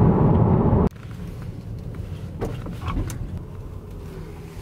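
Car cabin noise while driving: a steady low road rumble that cuts off abruptly about a second in, giving way to a much quieter low engine hum with a few faint clicks.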